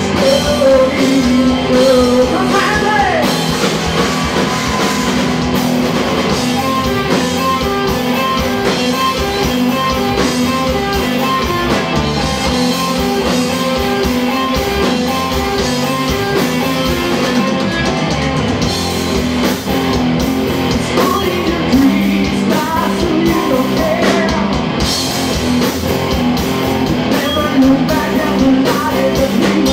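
Live rock band playing an instrumental passage between sung verses: electric guitar over a drum kit.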